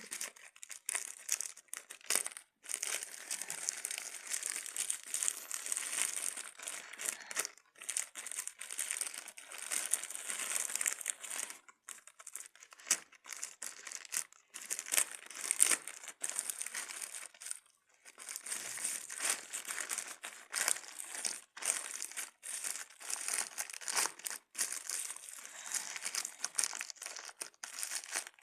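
Pen drive packaging crinkling and crackling as it is handled and torn open, in irregular stretches with short pauses.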